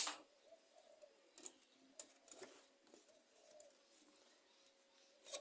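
Faint, scattered light clicks and taps of small metal engine parts and tools being handled and set down during the strip-down of a lawn mower engine, over a faint steady hum.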